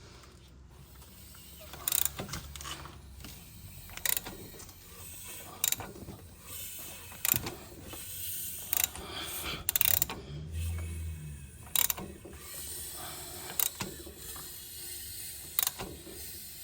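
Nissan QR25 engine being turned over by hand with a wrench after a timing chain install, to check the timing: a sharp mechanical click about every one and a half to two seconds over a low grinding rumble.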